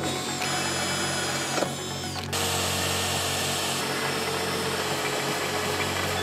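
Power drills boring into a steel bracket plate. First a cordless drill runs steadily; then, after an abrupt change about two seconds in, a magnetic drill's motor runs steadily as its bit cuts through the steel.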